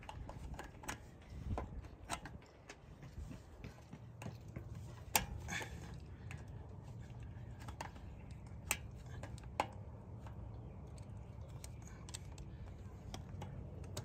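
Needle-nose pliers and a pick clicking and scraping on a steel circlip and the splined stub axle of a front wheel hub as the keeper ring is worked out: scattered small metal clicks, with a few sharper ones, over a low steady hum.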